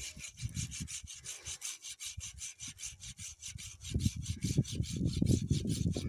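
Hand saw cutting through a piece of firewood in quick, even back-and-forth strokes, several a second. A louder low rumble joins about four seconds in.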